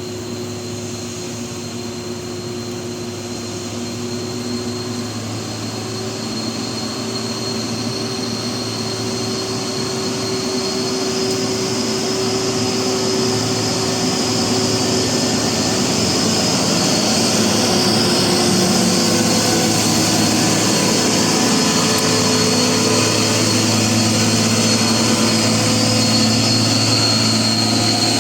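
Heavy diesel engine of a bus or truck laboring up a steep climb under load. It grows louder over roughly the first fifteen seconds as the vehicle approaches, then holds steady, with a steady high whine above the engine note.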